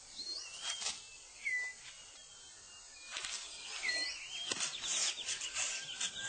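About half a dozen short whistled bird chirps, each a quick hooked or wavering note, over crackling rustles of leaves and twigs as a six-plumed bird of paradise clears debris from its display ground on the forest floor. The rustling thickens in the second half.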